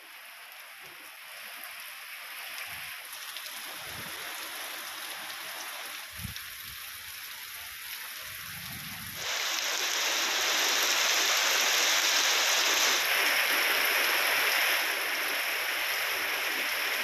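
Heavy rain pouring steadily, a dense, even hiss that grows much louder about nine seconds in. A few short low thuds sound in the first half.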